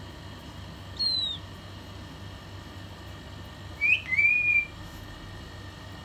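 Pet common myna whistling twice: a short falling whistle about a second in, then a quick rising note that runs into a longer level whistle about four seconds in.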